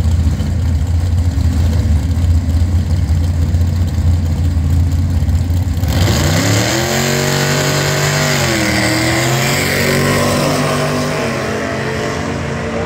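Drag-racing car engines idling at the start line with a steady, deep rumble. About six seconds in, the sound changes to engines revving, their pitch rising and then holding as the cars launch and run down the strip.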